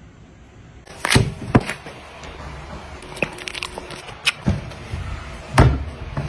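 Close-up eating and food-handling noises: sharp mouth clicks and smacks with a few dull knocks, starting about a second in. The loudest comes about five and a half seconds in.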